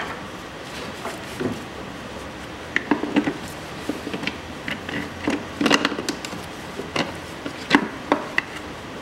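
Irregular clicks and knocks of pliers, hose clamps and plastic parts being handled in a car's engine bay as hoses are pulled off, over a steady low hum.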